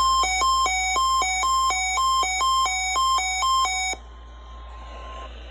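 Electronic two-tone alert alternating between a higher and a lower beep about twice a second, signalling a NOAA Weather Radio required weekly test. It cuts off about four seconds in, leaving faint radio hiss.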